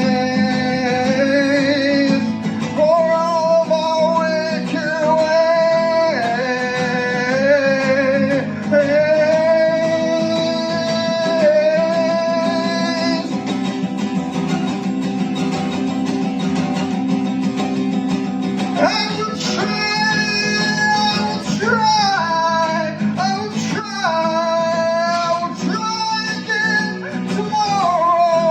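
Live acoustic guitar accompaniment with a voice holding long, wavering wordless notes over it.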